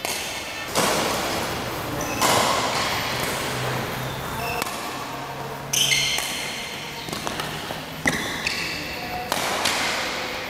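Badminton rally in a large hall: about five sharp racket strikes on the shuttlecock, each ringing on in the hall's echo, with short high squeaks between them.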